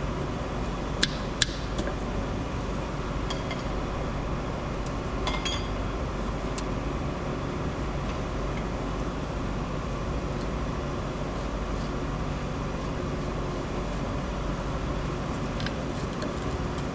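A few light metallic clinks and taps of engine parts and tools being handled, scattered over a steady background hum.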